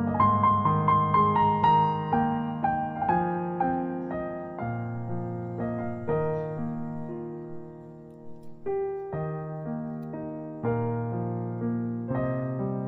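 Background piano music: a gentle melody of struck notes that fade away. It grows quieter and sparser in the middle and picks up again after about nine seconds.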